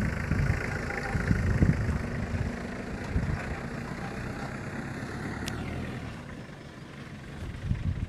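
Small pickup truck's engine running as it drives away, fading steadily as it goes.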